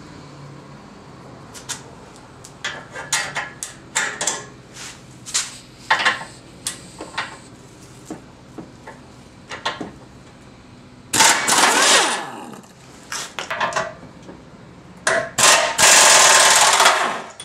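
Air impact wrench hammering bolts loose, in two long bursts about 11 and 15 seconds in. Before them come scattered short metal clicks and knocks.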